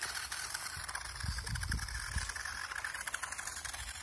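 Toy RC rock-crawler car driving over dirt and dry leaves, its small electric motor and plastic gears running with a fast clicking rattle. A brief low rumble comes in a little over a second in.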